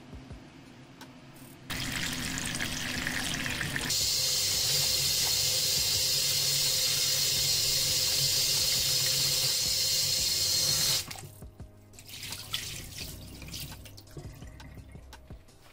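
Kitchen tap running into a stainless steel sink while okra is rubbed clean by hand in a steel bowl: a steady rush of water that stops suddenly about eleven seconds in. After it comes irregular splashing as the water is tipped out of the bowl into the sink.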